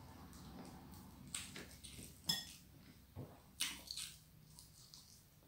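Quiet eating sounds of someone eating fried fish by hand: a scatter of short wet clicks and smacks from the mouth and fingers, the loudest a little over two seconds in.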